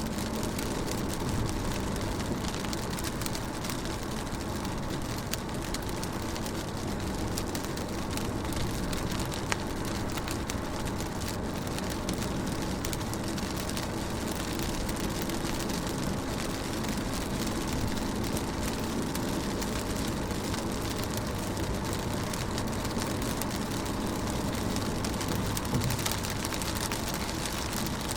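Steady rain falling on a car window: many small drop ticks over an even hiss, with a low rumble underneath.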